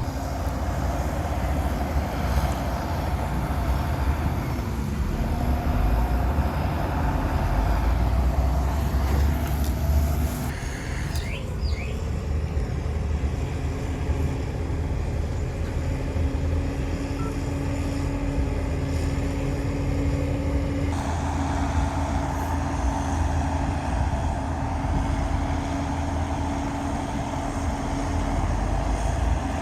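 Diesel engines of heavy earthmoving machinery (bulldozer and dump trucks) running with a steady low rumble. A steady whine joins about halfway through, and the sound shifts abruptly twice.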